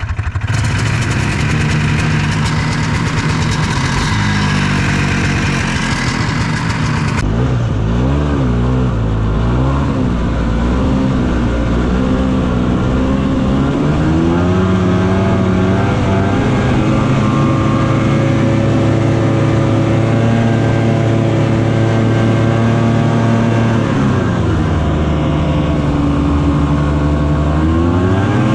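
Snowmobile engine, just cold-started with the primer and no choke, running steadily while it warms up. About seven seconds in the sound changes abruptly, and from then on the engine speeds up and slows down again and again.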